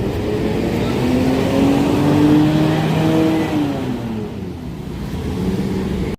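Tour bus engine accelerating past, its pitch rising for a couple of seconds and then falling away as it passes.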